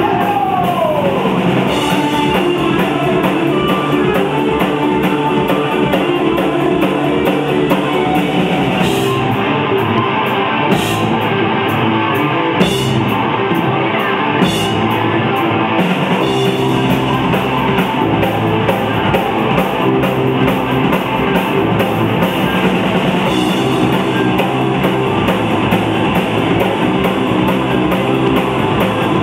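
Live rock band playing loud: electric guitar over a drum kit. The deepest bass drops away for several seconds about a third of the way through, then returns.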